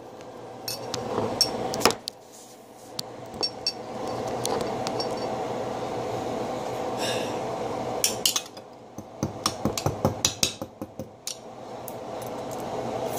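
Metal spoon knocking and clinking against ice frozen solid in a drinking glass, in scattered strikes with a quick flurry of taps in the last third. A steady hum runs underneath.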